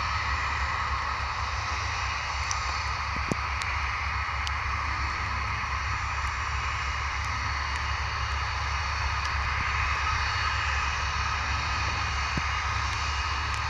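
The four Lycoming ALF 502 turbofan engines of a BAe 146-200 running steadily at taxi power: a continuous jet engine whine.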